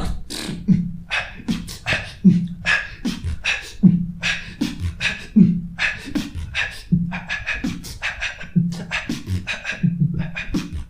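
Vocal beatboxing: a steady beat of sharp mouth-made snare and hi-hat hits over short hummed bass notes that recur about once a second.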